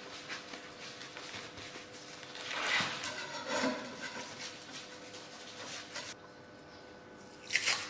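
Paper tissue wiping a glass pane damp with glass cleaner: a soft rubbing, louder for about a second some three seconds in.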